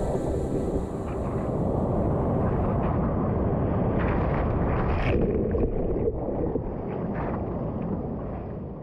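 Rushing wind on the microphone and surf noise in typhoon swell, with a few sharper splashy crackles. Background music fades out about a second in.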